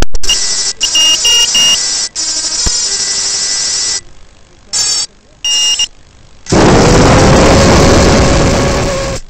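High electronic beeps, a quick run of them and then two more, followed by a racing quadcopter's brushless motors spinning up and running: a loud rushing noise with a steady whine that cuts off near the end.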